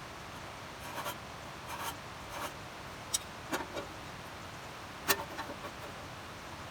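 Scattered short scrapes and clicks over a faint steady hiss, with one sharper click about five seconds in.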